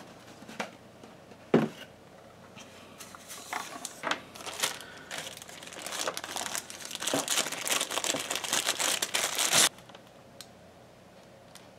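Two light knocks, then a few seconds of clear plastic packaging bag crinkling as a power adapter is unwrapped from it. The crinkling stops abruptly about two seconds before the end.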